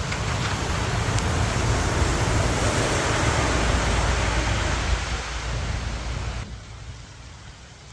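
Dump truck going by on the road, a loud rushing rumble that swells, then fades away about six seconds in.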